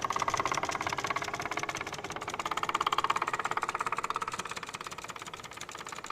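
Small piston engine of an early propeller aeroplane running, a rapid, even clatter of firing strokes that swells louder about one and three seconds in.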